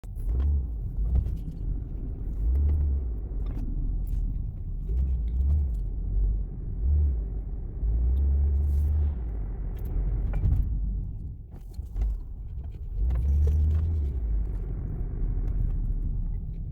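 2013 Nissan Cube being driven: a continuous low rumble that swells and fades unevenly, with light clicks and rattles. It is the noise the owner puts down to the brake rotors after fitting new ceramic brake pads.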